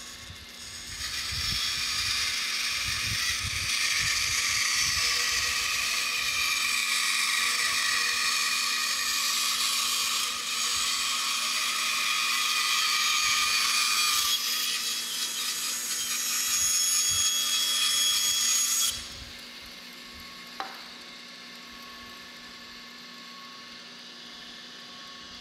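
Crescent angle band saw, its table tilted to 45 degrees, cutting through a 4x4 wooden block: a steady sawing noise for about eighteen seconds that stops suddenly as the blade clears the wood. The saw keeps running with a low steady hum, and there is a single click a couple of seconds after the cut ends.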